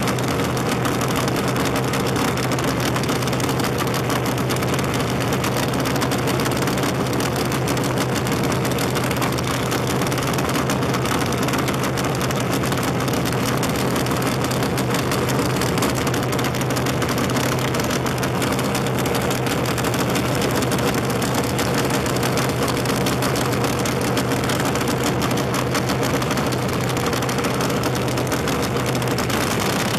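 Dragster engine idling steadily at the starting line, with an even, unchanging note and no revving.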